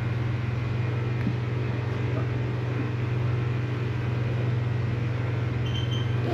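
Steady low mechanical hum of a motor or engine running at constant speed, holding one pitch throughout.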